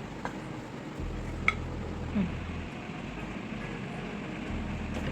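A single sharp clink of a utensil against a dish about one and a half seconds in, over steady kitchen background noise with a low hum that comes and goes.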